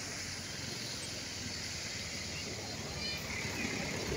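Steady rush of a fast-flowing river running over rapids.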